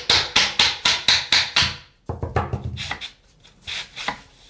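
Laminate floorboards being knocked together with a hammer: quick, even blows about four a second, then after a short pause a few lighter, scattered taps.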